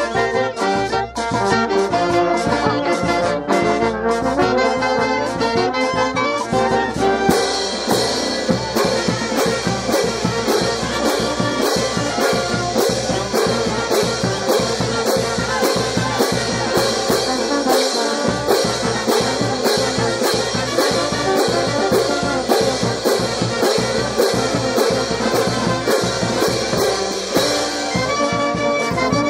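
Brass band music: trumpets and trombones play a melody over a steady percussion beat. The percussion grows brighter and busier about seven seconds in.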